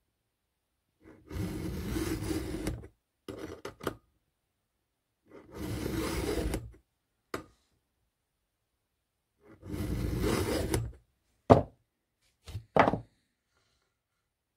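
3/16-inch round chainsaw file in a file-guide holder, sharpening a chain cutter: three long filing strokes, each a second or more, each followed by a short scrape or two. A few sharp metallic clicks near the end.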